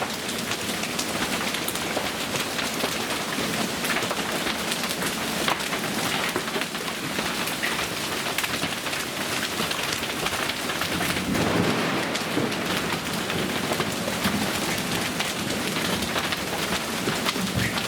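Heavy storm rain pouring steadily, with many sharp ticks of drops or stones striking, and a low rumble of thunder swelling about eleven seconds in.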